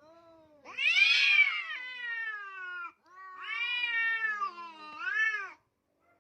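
A cat giving three long, drawn-out meows, each rising and then falling in pitch. The last is shorter.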